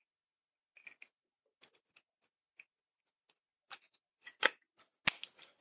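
Scattered small clicks and taps from an Arduino Uno with a shield plugged onto it being handled and turned over in the fingers, faint at first and louder in the second half.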